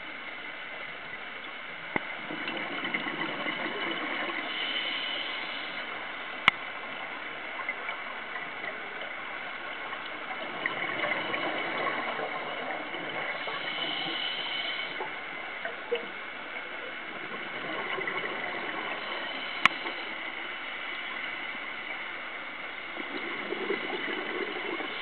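Scuba diver breathing through a regulator, heard underwater: bubbles gurgling out on each exhale in swells about every seven or eight seconds, with a few sharp clicks.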